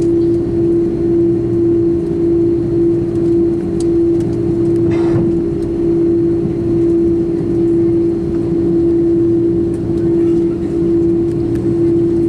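Cabin sound of an Airbus A330-300 taxiing on its General Electric CF6-80E1 engines, heard from a seat over the wing: a steady rumble with a constant hum running through it. A short hiss about five seconds in.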